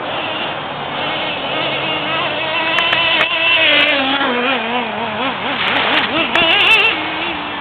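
Small nitro glow engine of a radio-controlled monster truck running, its pitch wavering up and down with the throttle, loudest in the middle and again near the end. A few sharp clicks are heard near the middle and near the end.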